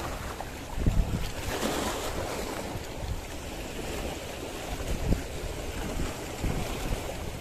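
Small sea waves washing and splashing against shoreline rocks, with wind buffeting the microphone in irregular gusts.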